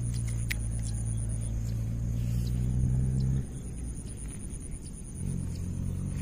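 A motor running with a steady low hum, which cuts out abruptly about three and a half seconds in and comes back near the end.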